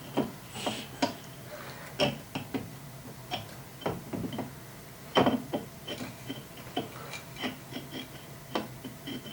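Irregular clicks and light knocks of hard statue parts being handled and fitted together, as an interchangeable arm is removed and attached; the sharpest knocks come about two and five seconds in.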